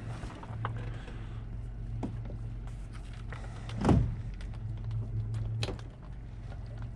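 Pontoon boat's motor running steadily at low speed. Scattered knocks sound over it, and one loud thump about four seconds in.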